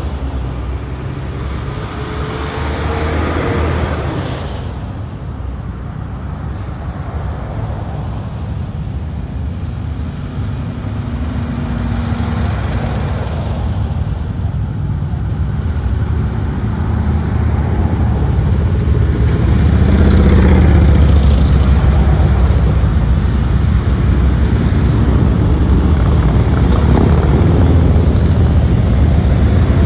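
A line of road vehicles passing. A fire engine goes by early on, then cars, and a group of motorcycles approaches, their engines growing louder through the second half.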